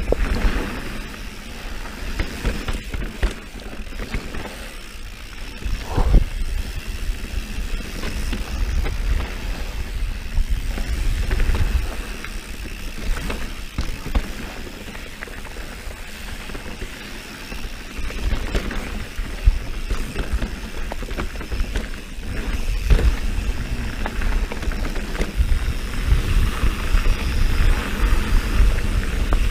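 Mountain bike riding over a dirt and rocky singletrack: tyres rolling on dirt and stones and the bike rattling over bumps, with a low rumble throughout. A hard knock about six seconds in is the loudest sound, and further knocks come over rough patches later on.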